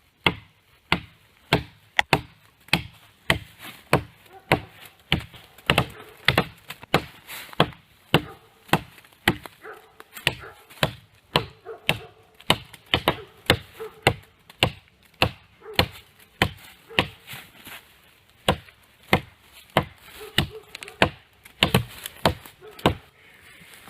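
A forged camp knife chopping into the trunk of a small maple tree: a long, steady series of sharp blade strikes on wood, about one and a half to two a second, with a short pause about two thirds of the way through.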